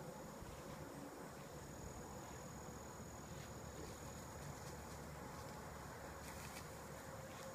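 Insects trilling steadily on one high, unbroken tone, with a faint steady hum underneath.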